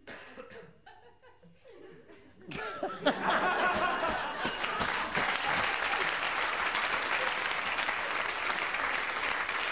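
Studio audience applauding, breaking out suddenly about two and a half seconds in and staying loud and steady after a few seconds of quieter voices and laughter.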